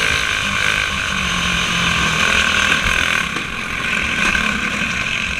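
Small single-cylinder four-stroke clone engine of a racing kart running hard at speed, heard from onboard with steady wind rush over the camera.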